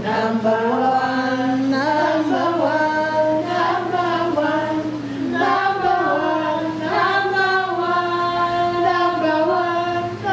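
A woman singing a worship song about Jesus, in long held notes that slide from pitch to pitch, over a steady low electrical hum.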